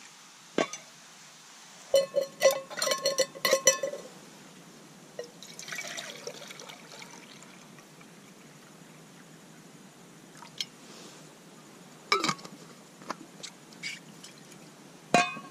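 Water poured from a stainless steel bottle into a metal camp mug. Before the pour, a quick run of metal clinks that ring on; after it, a few single sharp knocks as gear is set down.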